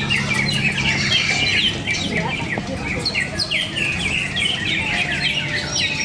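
Several caged cucak ijo (green leafbirds) singing at once in competition: a dense, unbroken chatter of short whistled notes, many of them falling in pitch, overlapping one another.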